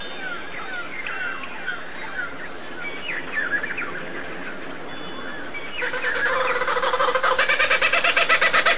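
Small birds chirping with quick, falling notes. About six seconds in, a louder, rapidly pulsing call from a larger bird starts and keeps getting louder.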